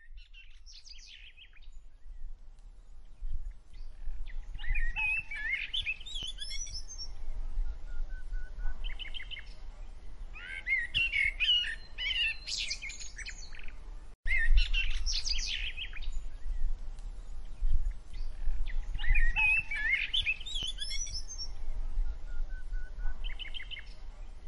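Birds chirping in repeated bursts of quick, varied calls, over a low rumble of wind on the microphone.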